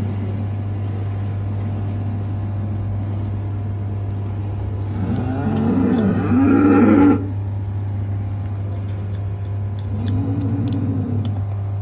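A steady low machine hum throughout, with a cow lowing about five seconds in, cut off sharply after two seconds, and a shorter low moo near ten seconds.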